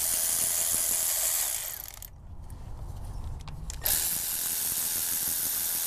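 Milwaukee power ratchet running in two bursts of about two seconds each, spinning out an already-loosened 12 mm throttle-body bolt.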